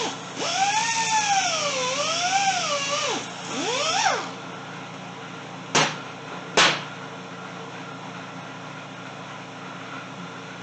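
Angle grinder working the pitted aluminium cases of a Kawasaki KZ400 engine. Its pitch sags and recovers several times as it is pressed into the metal. It falls quieter about four seconds in, and two short sharp bursts follow before a steady low hum.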